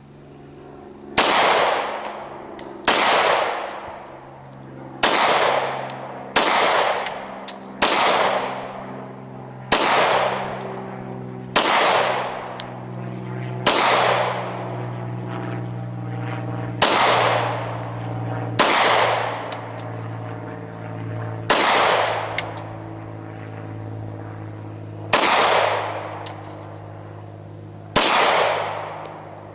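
Glock 22 pistol in .40 S&W fired in slow single shots, about fourteen, one every one to three seconds, each a sharp crack with a short fading echo. The pistol is being function-tested after its recoil rod was replaced with a steel captive recoil rod and spring.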